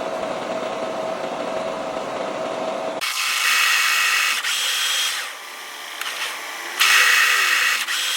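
A power saw running, then cutting aluminium. A steady machine run for about three seconds switches suddenly to a loud, high-pitched ringing cut, in two stretches with a quieter dip between them.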